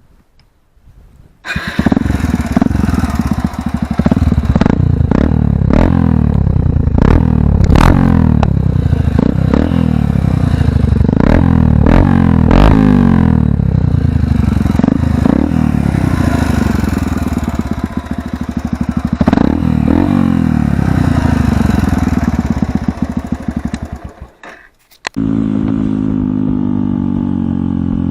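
Yamaha XT125X motorcycle's single-cylinder engine through an Akrapovic exhaust, starting up about a second and a half in and revving up and down over and over. Near the end it dies away briefly, then a lower, steadier engine note follows.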